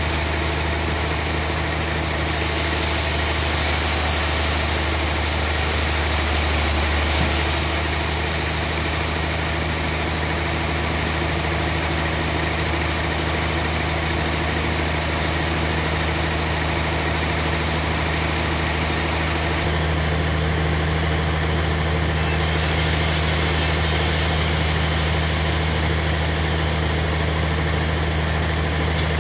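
Bandsaw mill running and sawing through a large timber block as the carriage feeds it past the blade: a steady machine drone with a constant low hum, and a cutting hiss above it that changes brightness several times.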